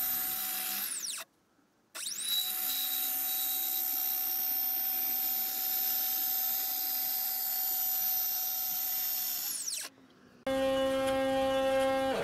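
Nema 17 stepper motors driving a DIY CNC's X-axis gantry along M6 lead screws, a steady high whine. Twice, about a second in and near the end, the whine glides down as the carriage stops and goes briefly silent, then glides back up as it sets off again. Near the end a buzzier stepper tone with several pitches takes over.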